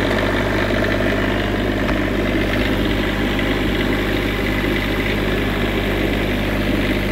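Onan 8000-watt diesel generator running steadily with no load, its output breakers switched off.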